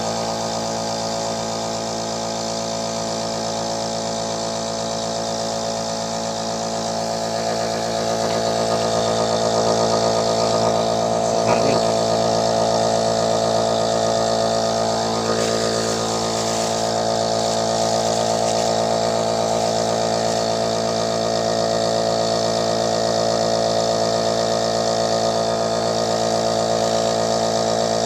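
Electric nebulizer's air compressor running with a steady buzzing hum on test after repair; it gets slightly louder about eight seconds in.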